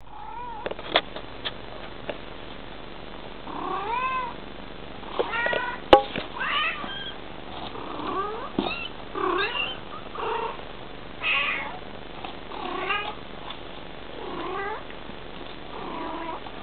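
A Bengal mother cat calling to her kittens with a run of short meows that rise and fall in pitch, about one a second. A few sharp knocks come in the first six seconds, the loudest about six seconds in.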